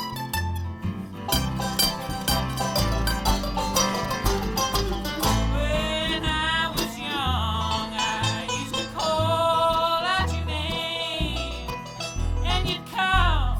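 Live bluegrass band playing an instrumental break: quick-picked acoustic strings over a steady bass line, with bending, sliding lead notes in the second half.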